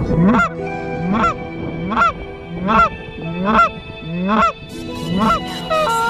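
A hand-blown goose call sounding Canada goose honks in a steady rhythm: a two-part honk that breaks from a low note up to a higher one, about eight times, close to the microphone.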